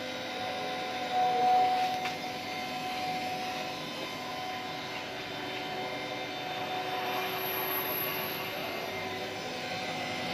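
3-axis micro drilling machine running, its motors giving a steady whining hum made of several held tones, with a brief louder swell about a second in.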